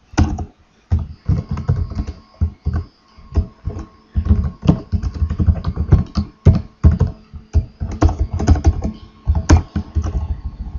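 Fast, irregular typing on a computer keyboard close to the microphone: keys clacking with dull thumps, in runs broken by short pauses.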